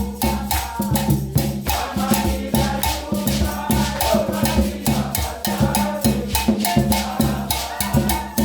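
Intro music with a steady, busy beat of drums and shakers over a repeating melody.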